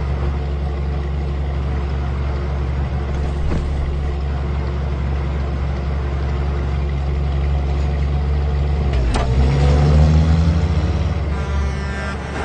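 An engine running steadily, its pitch rising about nine seconds in.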